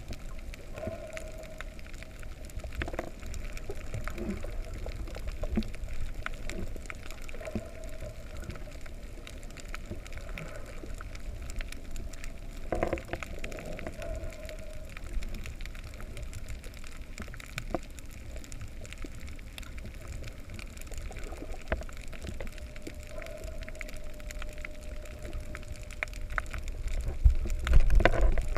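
Underwater ambience over a reef: a muffled low rumble of moving water with scattered clicks and crackles, and a faint hum that comes and goes. The water noise swells louder near the end.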